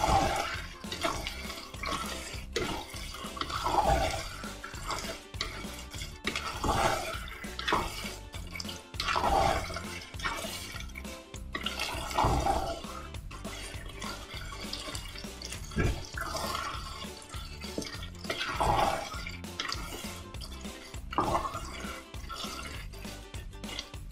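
Wooden spoon stirring chicken pieces through a thick tomato and pepper sauce in a pot: wet squelching and sloshing in strokes every few seconds, with light knocks of the spoon against the pot.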